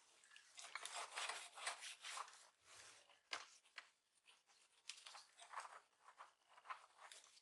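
Soft cloth wiping over a laptop screen wet with glass-cleaning liquid: faint, irregular rubbing strokes, busiest in the first couple of seconds.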